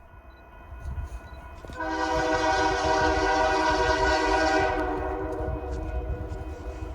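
Union Pacific freight locomotive sounding its air horn for a grade crossing: one long blast starting about two seconds in and holding on, loudest in the middle and softening toward the end, over the low rumble of the approaching diesel train.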